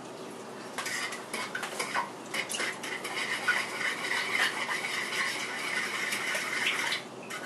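A block of cheese being rubbed up and down a flat handheld metal grater: a run of repeated rasping, scraping strokes. It starts about a second in and stops shortly before the end.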